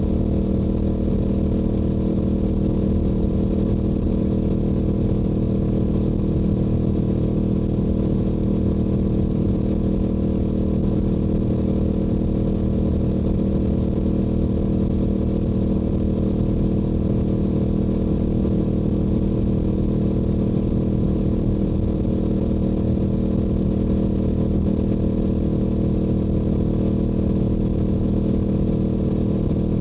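Stock Yamaha YZF-R7's 689 cc parallel-twin engine and exhaust running at a steady highway cruise, holding an even pitch with no revving or shifting.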